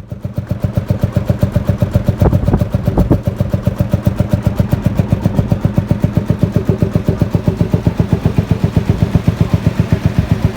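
HSCS hot-bulb tractor's single-cylinder two-stroke engine running with a fast, even thump of about eight beats a second, with a couple of short clanks a few seconds in.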